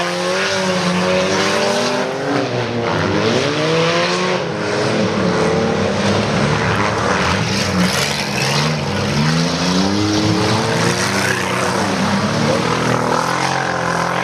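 Several stock-class race cars running flat out on a dirt track, their engines revving up and down in overlapping rising and falling notes as the cars accelerate and back off through the turns.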